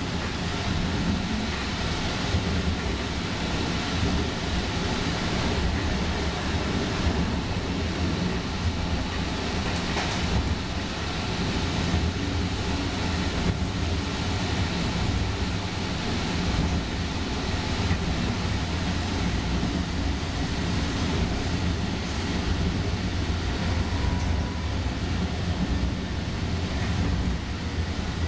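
O-Train Confederation Line light-rail train running at speed, heard from inside the passenger car: a steady low rumble of wheels on the rails.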